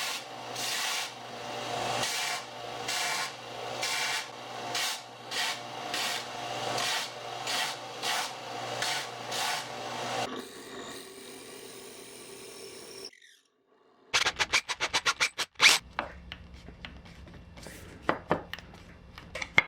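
Hand file scraping back and forth across the end of a hot-rolled steel bar, roughing it up, about one and a half strokes a second for ten seconds. After a short gap comes a fast run of sharp taps, then a few scattered knocks.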